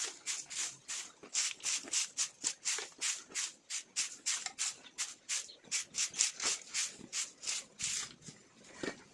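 Rhythmic scraping or rasping strokes, about three to four a second, keeping an even pace throughout.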